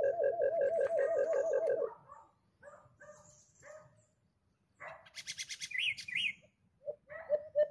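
White-eared brown dove call: a fast, even series of low hooting notes, about five a second, that stops about two seconds in. A burst of higher chirping follows about five seconds in, and the low hooting series starts again near the end.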